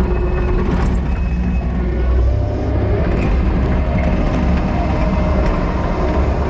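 Kubota SVL 90-2 compact track loader's four-cylinder turbo diesel running steadily under load as it tracks over and packs gravel backfill on a slope.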